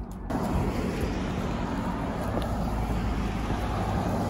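Outdoor roadside ambience: steady traffic noise with wind on the microphone, starting suddenly just after the start.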